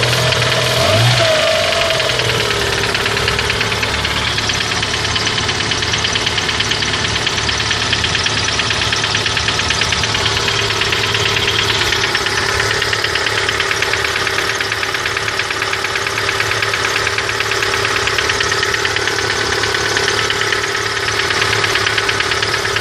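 Great Wall Hover H2's 2.4-litre 4G64 petrol engine running. It is blipped briefly near the start, then settles to a steady idle with a fast ticking noise over it. This is the extraneous engine noise the owner cannot diagnose.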